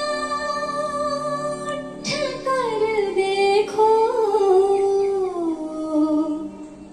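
A woman singing a slow melody with sliding pitch over sustained instrumental notes, the voice entering about two seconds in and growing softer near the end, played through a flat-screen TV's built-in speakers in a small room.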